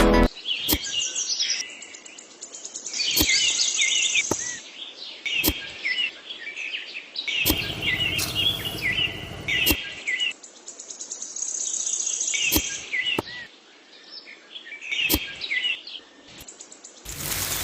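Small birds chirping and twittering in quick repeated phrases, coming in clusters with short gaps, with a few sharp clicks in between.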